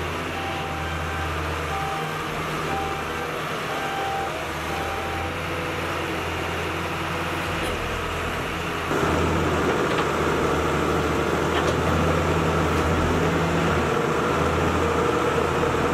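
Doosan wheeled excavator's diesel engine running steadily, with a few short high beeps in the first five seconds. About nine seconds in the engine sound becomes louder and closer as the machine digs mud.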